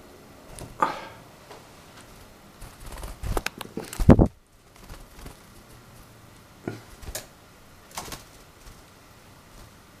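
Scattered taps, knocks and rustles of a small pet finch hopping and fluttering about a man's hand and head, with a loud low thump just after four seconds in.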